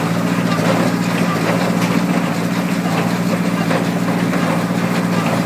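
Tractor engine running steadily during hay baling.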